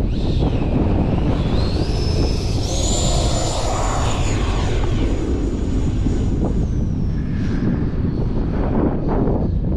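High-pitched whine of an E-flite Viper 90 RC jet's electric ducted fan. It rises in pitch about two seconds in, holds a steady high note, then falls away after about seven seconds. Heavy wind buffeting on the microphone runs underneath.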